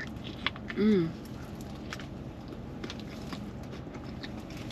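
A person biting into and chewing a large foil-wrapped burrito, with scattered soft mouth clicks and crinkles. A short 'mm' hum through a full mouth about a second in.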